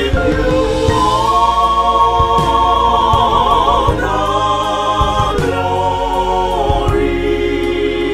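Gospel choir singing long held notes with a wavering pitch, over a steady low accompaniment that changes chord every second or two.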